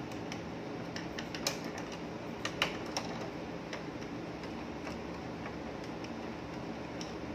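Irregular small plastic clicks and taps as a part of an inkjet printer's carriage is pried loose with a hand tool, busiest and loudest in the first three seconds, then sparse.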